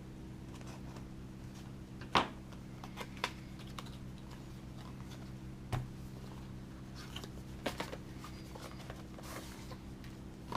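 Small cardboard box and packaging being handled and opened: scattered light clicks, taps and a brief rustle, the sharpest click about two seconds in, over a steady low hum.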